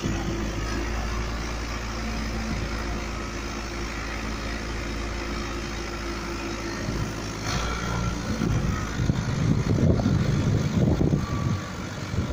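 An engine idling steadily with a low hum. In the last few seconds a louder, uneven low rumbling comes over it.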